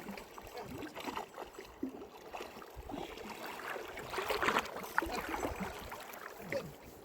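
Water sloshing and splashing in a river, with faint voices.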